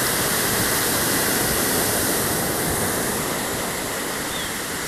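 Surf breaking and washing on a pebbly beach: a steady rushing hiss.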